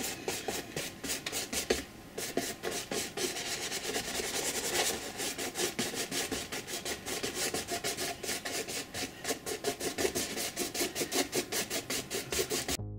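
Paintbrush dry-brushing acrylic paint across a canvas made bumpy by glued string and tissue paper: quick, scratchy back-and-forth strokes, several a second. It cuts off suddenly just before the end.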